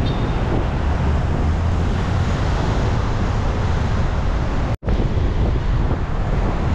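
Strong sea wind buffeting the microphone in a loud low rumble, with surf breaking behind it. The sound drops out for an instant a little under five seconds in.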